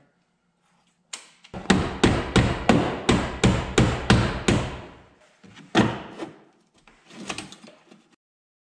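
Hammer blows on the thin sheet-metal edge of a 2003 Dodge 2500 pickup door around the latch. There is a quick run of about ten even strikes, about three a second, then a few more spaced taps near the end.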